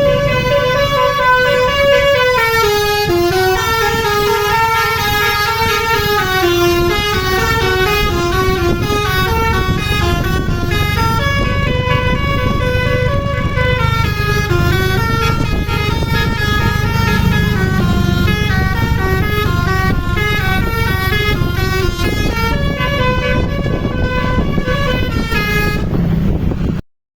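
Basuri musical bus horn on a PO Dewi Permata bus playing a long, loud melody, its notes stepping up and down in pitch, over the low rumble of the bus. It cuts off abruptly near the end.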